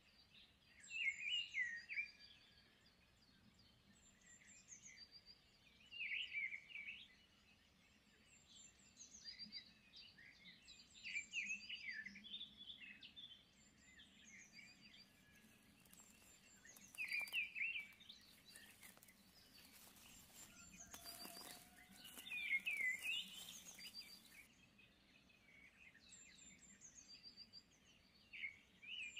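Wild birds singing: one bird repeats a short warbled phrase about every five seconds, with thin high chirps from other birds in between. A stretch of hiss-like noise runs for several seconds past the middle.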